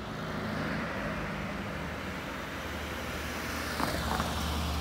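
A motor vehicle running: a steady engine hum under road noise.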